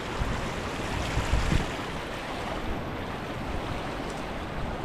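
Steady rushing of a creek's rapids, with wind buffeting the microphone in low, uneven rumbles.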